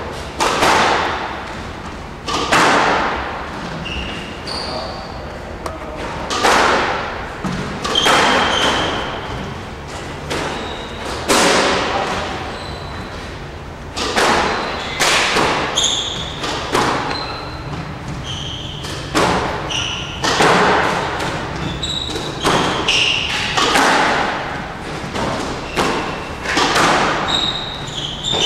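Squash rally: the ball knocking against rackets and the court walls in an irregular series of sharp, echoing hits, with short high squeaks of court shoes between them.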